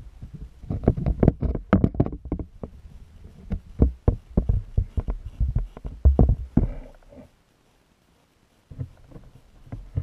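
Muffled, irregular knocks and thumps of a metal rod and hands working in a small water-filled acrylic tank, with water moving, as heard through a waterproof camera housing. The sound stops for over a second about seven seconds in, then resumes more faintly.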